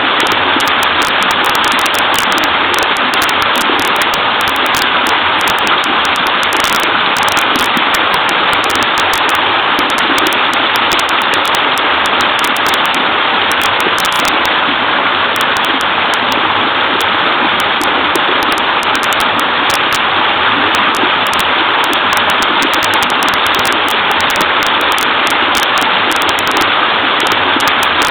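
Small waterfall in a wide creek, the water falling and babbling in a steady, unchanging rush.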